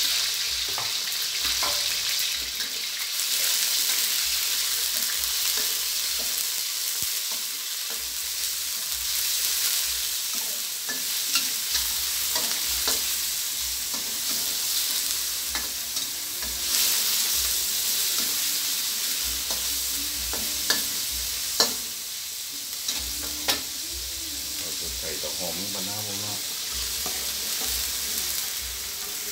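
Sliced pork sizzling in hot oil in a steel wok, the sizzle easing gradually as it cooks. A metal spatula stirs it, scraping and now and then clinking sharply against the pan.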